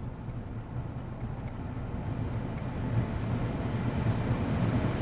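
2008 Cadillac CTS climate-control blower fan pushing air out of the dash vents, heard inside the cabin: a steady rush of air over a low hum that grows gradually louder.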